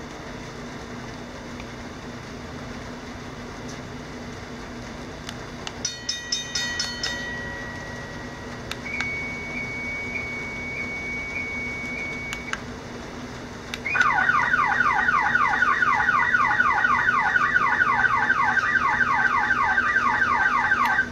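Electronic police-style siren cycling through its tones: a short burst of beeps, a steady high tone held for a few seconds, then a loud rapid yelp of falling sweeps, several a second, that cuts off suddenly. A low steady hum runs underneath.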